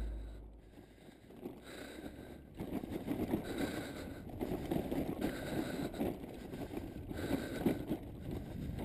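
A deep boom dying away at the start, then after a moment of near silence a faint, uneven rumbling noise.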